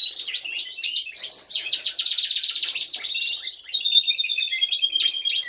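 Several Norwich canary cocks singing at once in an unbroken stream of rapid trills and held whistled notes. Song like this is the sign that the cocks are fit and ready to breed.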